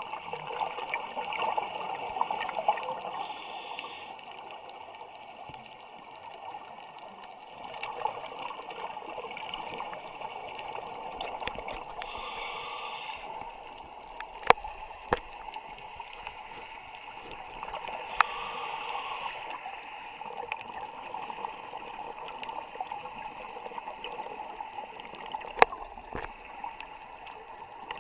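A scuba diver breathing through a regulator underwater: three short hissing inhales, each followed by a longer gurgling rush of exhaled bubbles, with a few sharp clicks scattered through.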